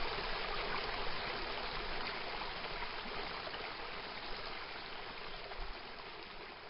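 Steady rushing of flowing stream water, growing gradually quieter.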